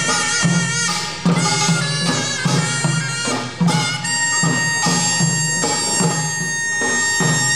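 Korean pungmul band playing: a piercing taepyeongso (Korean shawm) melody held over drums (buk and janggu) beating a steady rhythm of about two strokes a second.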